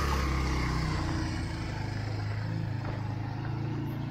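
A motor vehicle, apparently the mail delivery vehicle, drives past with its engine running. The engine note shifts lower about a second in, then carries on a little more quietly.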